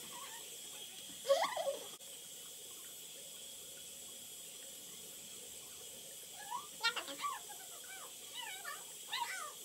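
Water running steadily from a tap into a sink, with short high-pitched squeaky vocal sounds about a second in and again in a cluster over the last three seconds.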